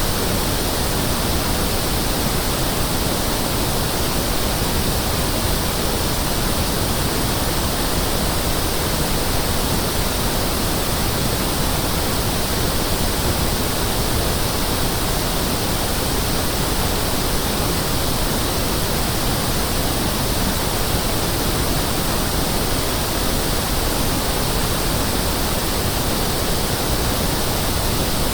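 Pink noise test signal: a steady, unbroken hiss spread evenly from deep to high pitches, as used to check loudspeakers, sound systems and room acoustics.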